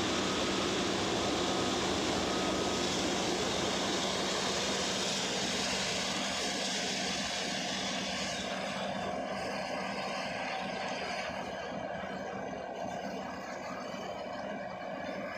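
Suction hose of a KOKS Megavac 8000 vacuum truck drawing in air and dry nickel ore pellets: a steady rushing noise over a low hum. The high hiss grows duller about halfway through.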